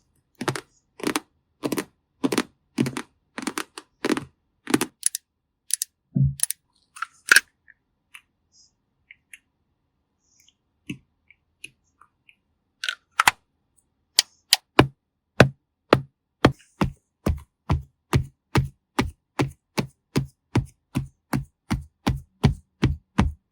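Rhythmic ASMR tapping: short, crisp taps about twice a second, a quieter pause with a few scattered ticks, then a faster, steady run of about three taps a second.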